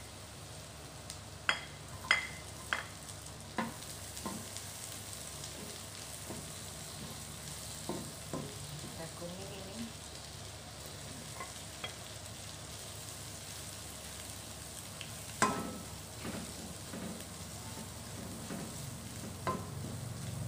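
Minced garlic and chopped chillies frying in oil in a non-stick wok, a steady sizzle, with a spatula scraping and knocking against the pan. The knocks come in a cluster in the first few seconds and the loudest comes about fifteen seconds in.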